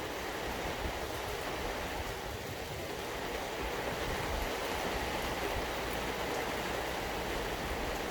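Steady rainfall: an even hiss of rain with a few faint drip ticks.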